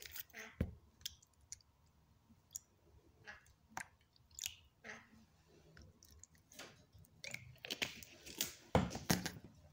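Thin plastic water bottle crinkling and clicking in the hands as its screw cap is taken off and put back on: a scatter of small clicks and crackles, with a louder burst of crinkling about eight seconds in.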